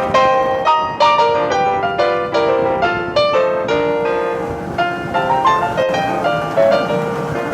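Background music: solo piano playing a lively line of notes, several notes a second.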